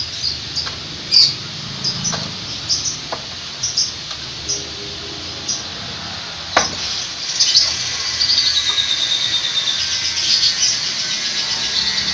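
Small birds chirping in short high calls, growing into dense, rapid chirping in the last few seconds. A single sharp knock about six and a half seconds in.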